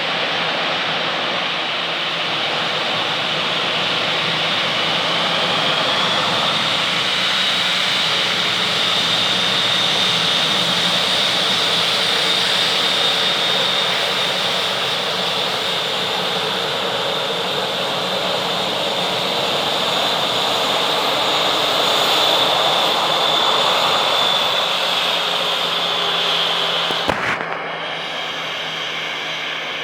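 Airbus A320 jet engines running at taxi power: a steady rushing noise with a high whine over it. A sharp click about 27 seconds in, after which the sound is quieter.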